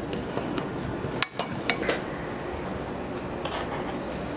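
Chopsticks and a spatula clinking and scraping against a metal mixing bowl while scooping mashed sweet potato, with a cluster of sharp clicks between one and two seconds in.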